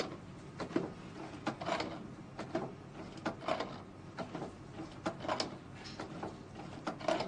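Suzumo sushi robot running as it forms nigiri rice balls and turns its tray: irregular mechanical clacks, about two a second, over a low steady motor hum.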